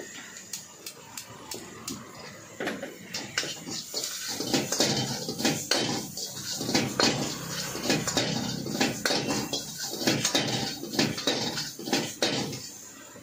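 A metal ladle scraping and clanking against a steel wok in irregular quick strokes while stir-frying, over a steady hiss from the high gas flame and frying.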